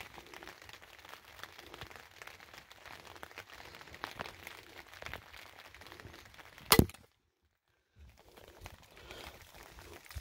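Handling noise from a hand-held camera: faint rustling and small crackles, then one sharp, loud knock about two-thirds of the way in, after which the sound cuts out completely for about a second.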